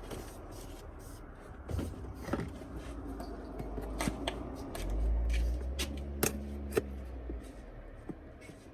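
Handling noise while working on car stereo wiring: scattered clicks and taps with light rustling, and a low rumble for about a second around the middle.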